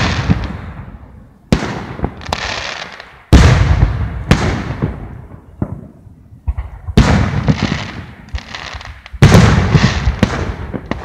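Aerial firework shells bursting: a series of loud booms every couple of seconds, each dying away in a long echo, with smaller sharp cracks between them.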